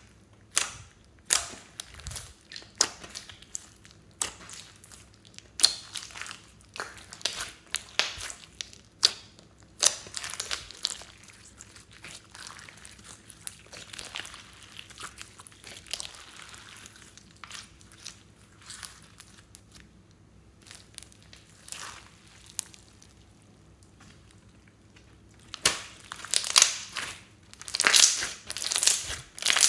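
Glossy slime with small beads mixed in, being pressed, stretched and folded by hand, giving irregular sharp wet pops and crackles, busier near the end.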